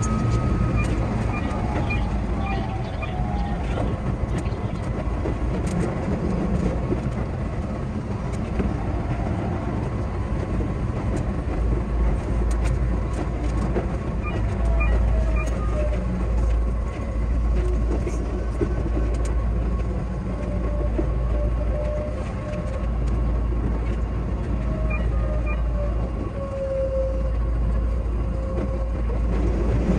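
Keihan 8000 series train running along the line, heard from the driver's cab: a steady rumble of wheels and running gear with faint shifting motor tones.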